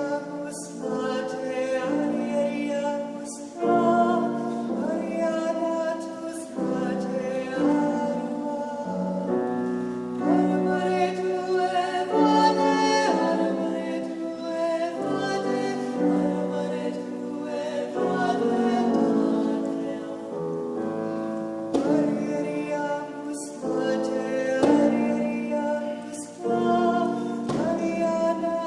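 A choir singing in harmony, with sustained chords that change every second or so.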